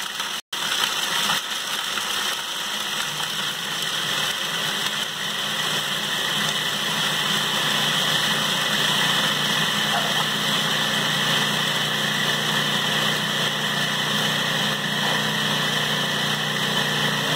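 Countertop food processor running steadily, its blade grinding cashews, arrowroot starch and salt into a fine meal: a steady motor hum under a high grinding hiss.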